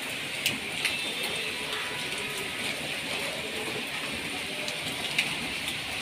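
Water spray hissing against a car's underside as the oil-leak area is washed down, with a few sharp clicks.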